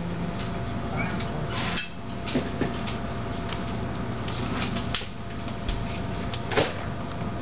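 A steady hum with a handful of scattered clicks and knocks, the loudest a little before the end.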